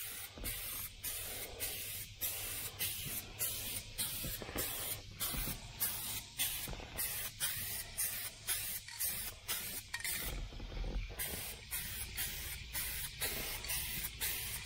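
Aerosol can of Color Coat paint spraying onto a truck's plastic interior door panel: a hiss that comes in quick, even spurts, about three a second, with a short break about ten seconds in.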